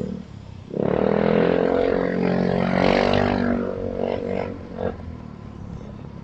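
A motor vehicle engine running close by: it comes in suddenly, stays loud and steady for about three and a half seconds, then fades away.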